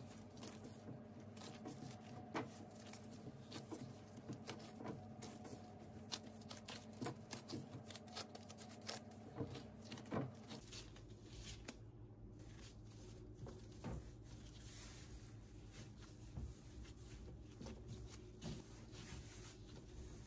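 Faint, irregular soft taps, squishes and rubbing of pizza dough being kneaded and rounded by gloved hands on a floured stainless steel counter, over a faint steady hum.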